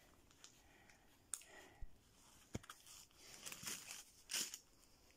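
Faint crinkling and rustling of plastic packaging as a new wallet is handled and unwrapped, with a few short clicks scattered through.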